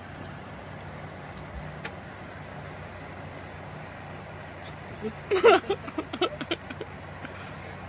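Small electric circulator fan running with a steady hum. About five seconds in there is a short, loud burst of voice-like sounds lasting about a second and a half.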